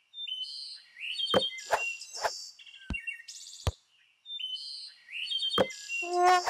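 Cartoon sound effects: a string of short, high bird-like chirps and whistles, broken by several sharp pops.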